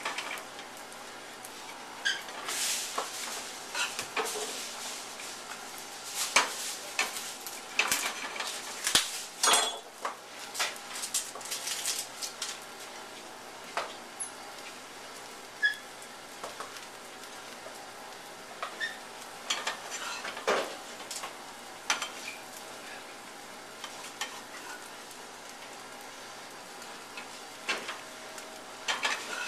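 Omelets sizzling in frying pans, with repeated clinks, scrapes and clatters of a utensil against the pans. The clatter is busiest in the first half and comes back in short clusters later.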